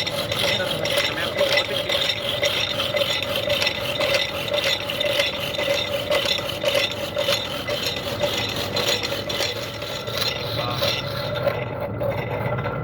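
Metal being worked: rapid, repeated scraping strokes over a steady machine hum, the scraping thinning out near the end.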